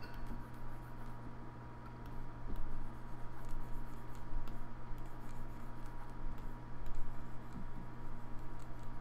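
Steady low electrical hum on the microphone, with faint scattered clicks and taps from a computer mouse and keyboard.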